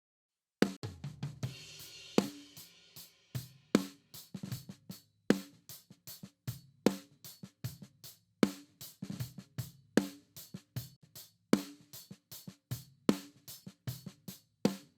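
Playback of a raw snare-top microphone recording of a drum kit through a compressor pushed fairly hard. Snare backbeats land about every second and a half, with kick and hi-hat bleed between them and a cymbal wash near the start. The playback starts after a short silence and stops just before the end.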